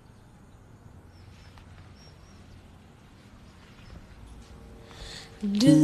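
A quiet pause in the backing audio with a few faint, short, high chirps, then music comes in near the end.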